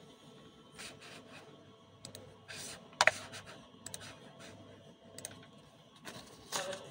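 Faint, scattered clicks and scratchy rustles of something being handled, with one sharper click about three seconds in.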